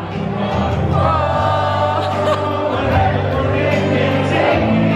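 A singer performing a song over backing music, with held bass notes underneath and the voice gliding between pitches.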